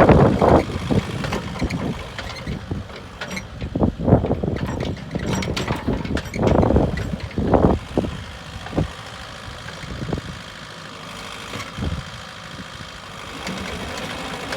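JCB 85Z-1 midi excavator's diesel engine running. In the first half it has several louder surges and sharp knocks, then settles into a steady idle.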